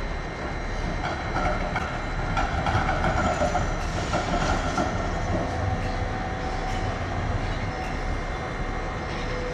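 A Melbourne tram passing, its wheels clattering over the rail joints with several sharp clacks in the middle, over a steady rumble. A whining tone rises out of the rumble and fades away about halfway through.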